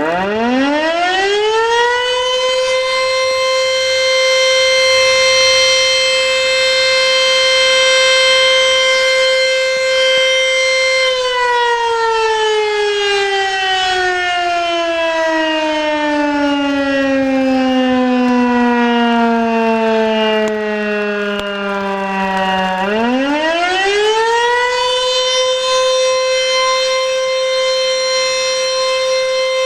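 Elektror S3 electric motor siren sounding the fire-alarm signal. It spins up to a steady rising tone within about two seconds and holds it for roughly nine seconds. It then winds down in a long falling tone for about twelve seconds before spinning up again and holding its full pitch near the end.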